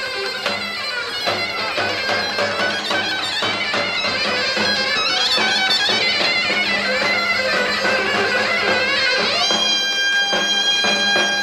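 Traditional folk music: a reed wind instrument plays a fast, ornamented melody over a steady low drone and a regular drumbeat, settling on a long held note near the end.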